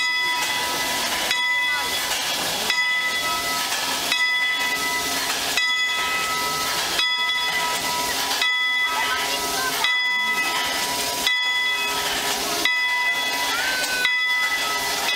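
Small steam locomotive standing in steam, hissing steadily, with a regular pulse about every one and a half seconds.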